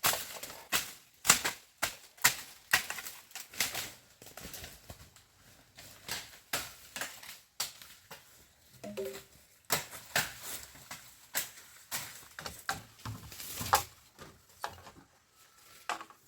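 An irregular run of sharp knocks and clicks, about two or three a second and uneven in loudness, with the loudest strikes about a second in and near the end.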